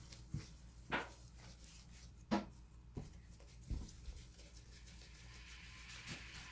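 Slime being pressed and handled by hand on a tabletop: a few short, faint squelches and taps, mostly in the first half.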